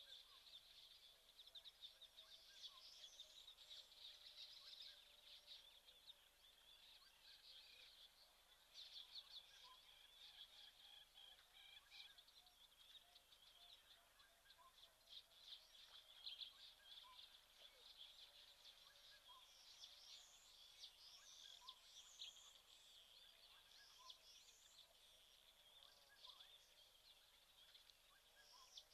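Faint bush ambience: a dense, high chirping chorus, with soft single pips every second or two.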